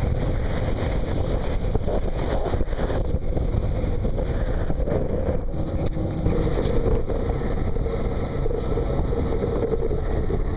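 Steady drone of a Suzuki 175 outboard motor driving a Pro-Line 20 Sport boat at speed, under heavy wind noise on the microphone and rushing water.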